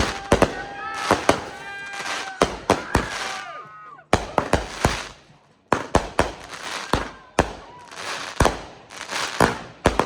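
Fireworks going off: a rapid, uneven run of sharp bangs and pops, with a short lull about four seconds in before the bangs resume.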